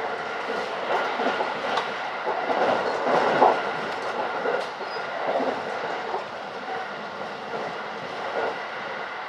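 Running noise of an electric rapid train heard from inside the carriage at speed: a steady rumble with a faint high whine, and wheels clicking and clattering over rail joints and points, loudest about three seconds in.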